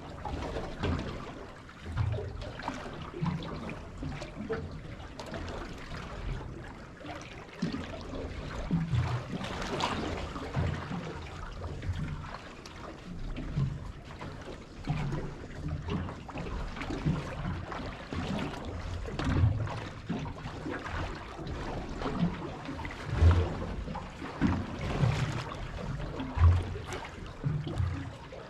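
Water lapping and slapping against the hull of a small fishing boat, in uneven low knocks and swells.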